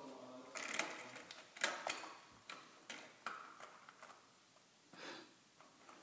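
Metal door spring being pawed and bitten by a puppy: it twangs with a ringing boing at the start, then gives a run of irregular metallic clicks and rattles, with one more short twang about five seconds in.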